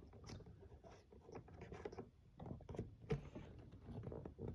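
Faint scratching and rubbing with scattered light clicks and taps as car seat parts are handled and fitted back together.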